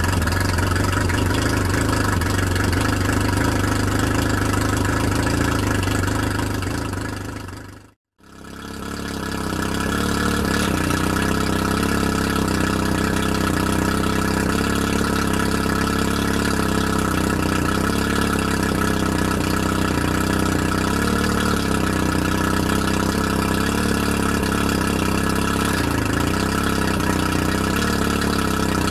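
Mariner 115 outboard motor running on a flushing hose, its newly replaced water pump pumping cooling water. After a momentary break about eight seconds in, it runs on in gear with the propeller spinning in the air and throwing water spray, the tone steady with a slight waver.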